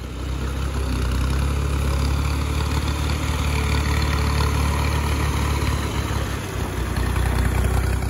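Farm tractor's diesel engine running steadily with a deep, low engine note as it hauls a trailer loaded with sacks of wheat.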